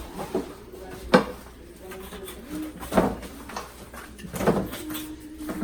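Hard-anodized non-stick pots and lids being handled, with knocks about a second, three seconds and four and a half seconds in. Short low steady hums sound in between.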